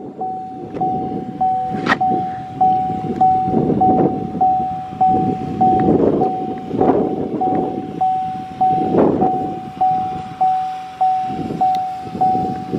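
A car's warning chime dinging over and over, about one and a half dings a second, each one fading before the next, over the low rumble of the car moving slowly.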